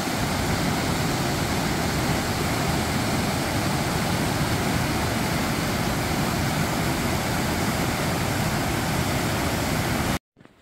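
Steady, loud rush of flowing water, even and unbroken, cutting off suddenly near the end.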